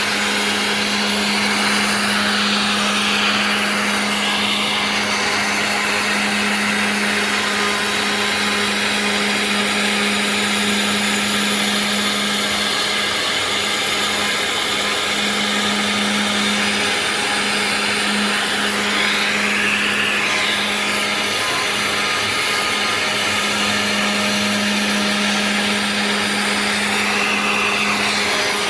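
Genmitsu 3020 PRO MAX CNC router's spindle running steadily while milling a part: a constant motor hum with cutting noise over it, shifting slightly a few times as the bit moves along the toolpath.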